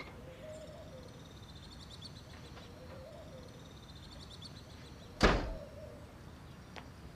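A heavy wooden door shut with one loud thud about five seconds in. Soft repeated bird calls and faint high chirping go on in the background.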